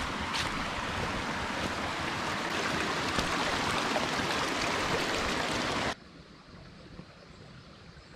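Stream water rushing over rocks in a steady hiss, cutting off abruptly about six seconds in to a much quieter outdoor background.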